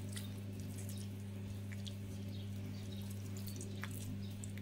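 A spatula stirring a thick, moist chicken, egg and cheese filling in a non-stick frying pan, giving faint scattered ticks and crackles over a steady low hum.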